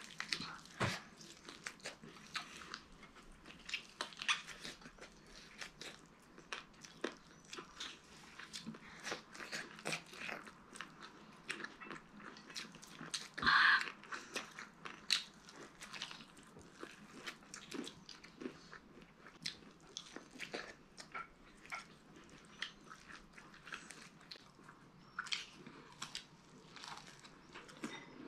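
Eating sounds: chewing and biting into crispy fried chicken and corn on the cob, a steady run of small crunches and crackles. One louder noise comes about halfway through.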